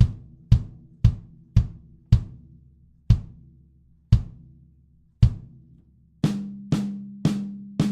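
Single drums of a drum kit struck one at a time, recorded raw through close drum mics. A low drum is hit evenly about twice a second, then about once a second, each hit ringing with a low tone. Near the end a higher-pitched drum takes over, struck about twice a second.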